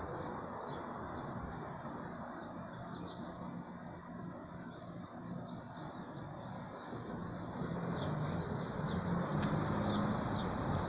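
Small birds chirping: many short, quick high calls scattered throughout, over a steady background of outdoor noise. A low hum grows louder near the end.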